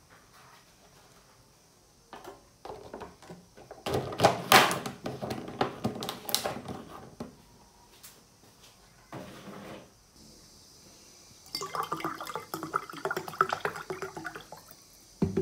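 A run of knocks and clatter from dishes and containers being handled, loudest about four seconds in. Near the end, water is poured from a plastic bottle into a glass mug, a gurgling stream lasting about three seconds.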